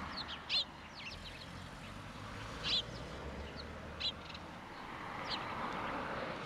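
Birds chirping in scattered short calls over a steady outdoor background hum.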